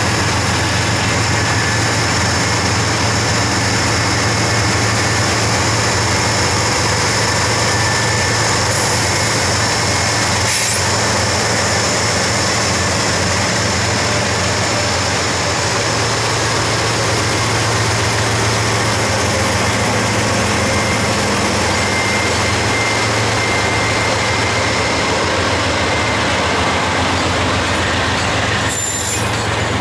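Norfolk Southern freight train's lashup of GE and EMD diesel locomotives rolling slowly past, their engines running with a loud, steady hum.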